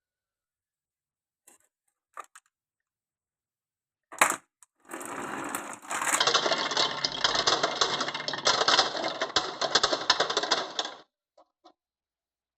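Marbles rolling and clattering down a wooden marble run: a few light clicks, a sharp knock, a short smooth roll, then a dense rattle of many marbles for about five seconds that stops suddenly, followed by two last clicks.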